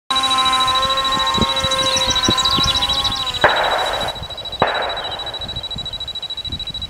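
RC plane's motor whining in flight, its pitch steady and then dipping slightly about three seconds in, over a high steady whine. Two sharp knocks come midway.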